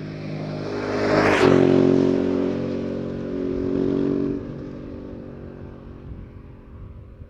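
Motorcycle engine running at steady revs, with a rushing whoosh swelling to a peak about a second and a half in. The engine sound drops away about four seconds in and fades out.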